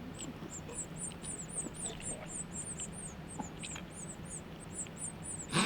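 Nestling birds cheeping: a steady run of thin, very high-pitched peeps, about four or five a second.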